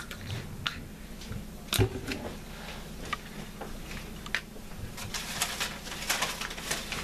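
Paper towel rustling as it is laid over a paper plate and pressed and smoothed down by hand, with scattered light clicks and one thump about two seconds in.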